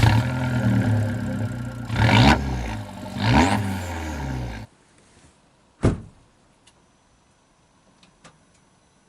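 Abarth 500 esseesse's turbocharged 1.4 four-cylinder, with a Garrett 1446 turbo and an aftermarket exhaust, being revved: two quick rises and falls in pitch over a steady running note. It cuts off abruptly after about four and a half seconds. A second or so later there is a single sharp knock, then a few faint ticks.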